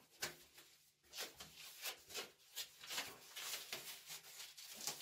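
Self-adhesive isolon (polyethylene foam) sheet rustling and rubbing as hands press and smooth it onto a plastic sewer pipe, in a series of short brushing strokes.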